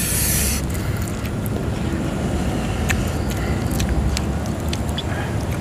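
Close-up eating sounds of chewing meatball and scattered small clicks of forks, over a steady low rumble.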